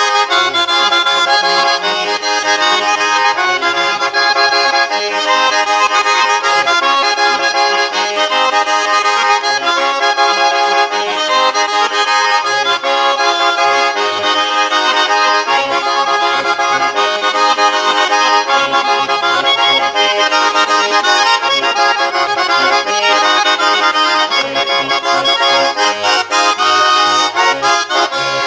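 Small diatonic button accordion (organetto) playing a tarantella, a lively stream of short melody notes over held chords that runs without a break.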